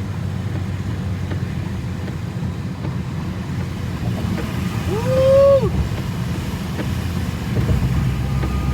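Steady low rumble of a tuned BMW 330i (G20) driving on a snowy road, engine and tyre noise heard from inside the cabin. A short rising-then-falling tone cuts in briefly about five seconds in.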